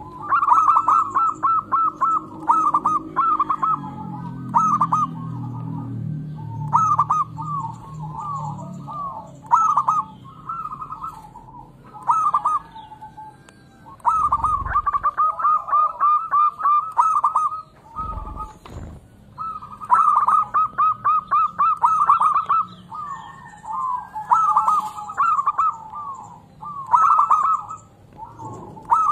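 Zebra dove (perkutut) singing: phrases of rapid staccato cooing notes, repeated with short pauses between them. Faint high chirps of small birds, and a couple of low thumps about midway.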